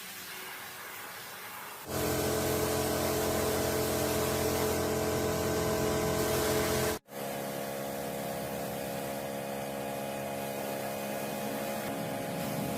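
A motor-driven machine starts running about two seconds in, a steady hum with a hiss over it. It breaks off for a moment near the middle, then runs on evenly.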